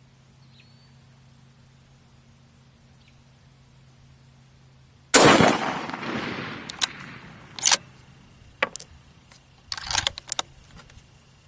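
A single shot from a Howa 1500 bolt-action rifle in 6.5 Creedmoor about five seconds in, its report trailing off in a long echo over a couple of seconds. It is followed by a series of sharp metallic clicks as the bolt is worked to eject the spent case and chamber the next round.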